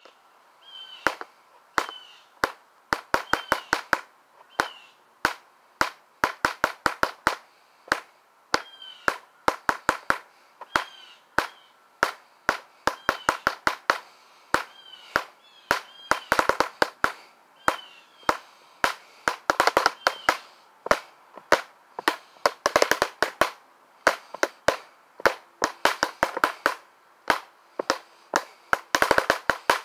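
Drumsticks playing a drum part: sharp, bright stick hits with little low end, in a steady pulse broken several times by fast rolls and fills.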